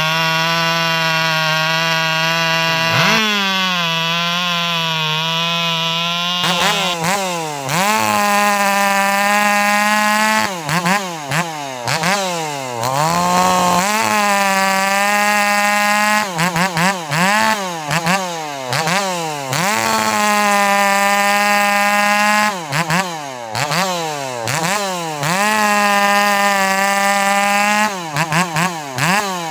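Two-stroke chainsaws running hard through log cuts. The engine pitch repeatedly sags and climbs again as the throttle is let off and opened back up, and the sound changes abruptly a little over six seconds in.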